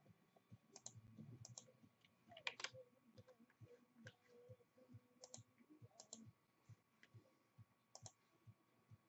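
Faint, irregular clicks of a computer mouse and keyboard, a scattering of separate taps with short gaps between them.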